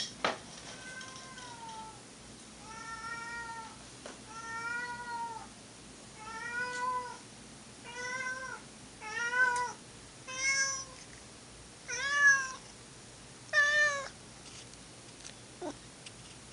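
Domestic cat meowing over and over: about nine drawn-out meows, each under a second, coming every second or two and getting louder toward the end. A sharp click sounds just at the start.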